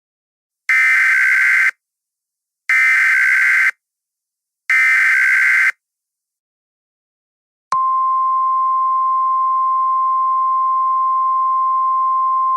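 Emergency Alert System SAME header: three one-second bursts of digital data tones, a second apart. About two seconds after the last burst, a single steady attention tone starts and holds, the 1050 Hz Weather Service alert tone.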